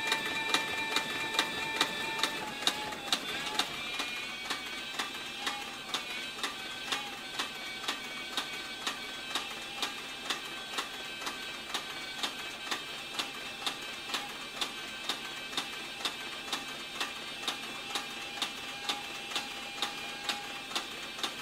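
Cowboy CB4500 walking-foot leather sewing machine stitching through a leather saddle skirt at a slow, even pace, with a sharp clack on each stitch about twice a second. A steady whine runs alongside.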